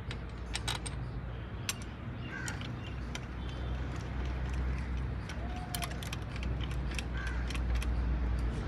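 Scattered metallic clicks and clinks, as of tools and metal parts being handled in a repair, over a steady low rumble.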